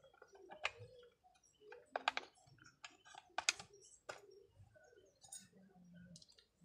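Irregular small metallic clicks and taps of a hand tool and parts being worked on a partly dismantled chainsaw, with a few sharp clicks close together about two seconds in and again about three and a half seconds in.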